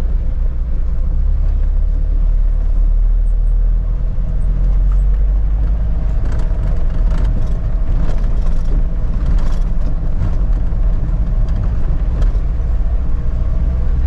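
Vehicle engine and road rumble heard from inside the cab while driving slowly over a rough dirt track, a steady low drone. About halfway through, a run of knocks and rattles comes in as the wheels cross rougher, gravelly ground.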